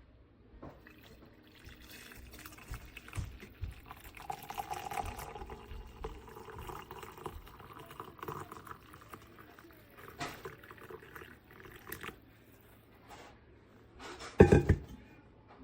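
Liquid being poured into a vessel, the pitch of the filling rising a little, with small clinks, then one loud knock near the end.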